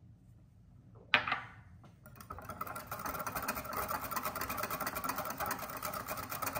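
Wire whisk beating a thick mayonnaise-based remoulade sauce in a glass bowl: a fast, steady rattle of the wires against the glass that starts about two seconds in. Before it, one sharp clink about a second in.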